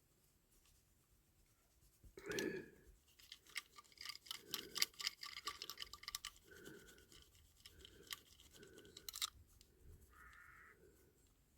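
Cloth rag buffing wax polish on a small diecast metal model car: a run of quick, faint rubbing strokes, busiest in the middle and thinning toward the end.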